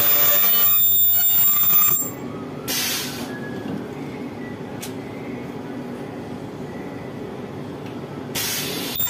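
Ultrasonic plastic welder screeching shrilly as its horn welds a plastic AC blower wheel, stopping about two seconds in. A short burst of noise follows, then a quieter steady machine hum with a single click while the wheel is changed, and the loud noise starts again near the end.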